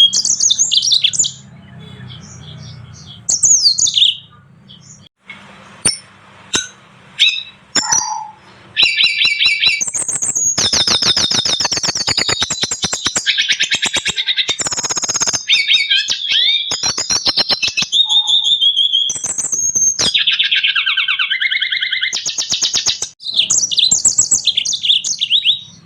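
Small finch-type songbirds singing in a combined masteran song recording of yellow-fronted canary, black-throated canary and red siskin. Short bursts of high chirps come first. About nine seconds in, the song runs on in long, fast, high trills and warbles made of rapidly repeated notes, breaks briefly near the end, then resumes.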